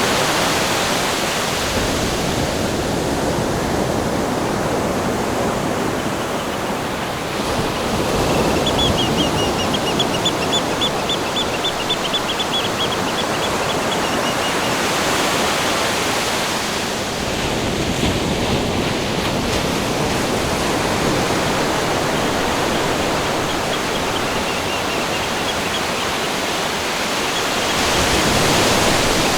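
Steady rushing water that swells and eases, with a bird's rapid high trill heard twice, once about a third of the way in and again near the end.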